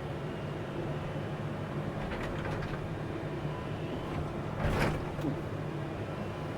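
Excavator engine running steadily while digging, with a few light knocks and then, a little before five seconds in, a louder scraping clunk of the bucket striking a rock.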